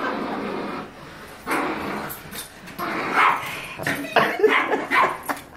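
A small dog giving a string of short barks and yips, which come thicker over the second half.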